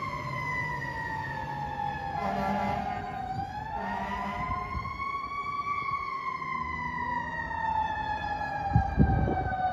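Fire truck siren on a ladder truck wailing, its pitch sliding slowly down, back up, and down again. Two short air-horn blasts come a couple of seconds in, and a few low thumps near the end.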